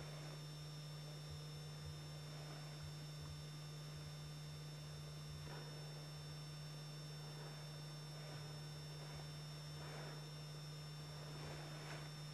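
Steady low electrical hum under an even hiss, with two thin high steady whines above it and a few faint brief rustles. No sound from the animals can be made out.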